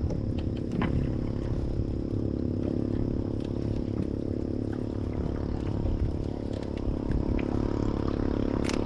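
Small fishing boat's engine running steadily at low speed, with scattered light clicks and clatter over it.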